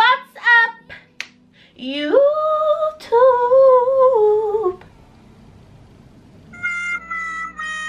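A woman singing: a few short falling whoops, then one long held note that rises, wavers and slides down at the end, possibly the word "YouTube" sung out. About a second before the end, music with a steady low bass comes in.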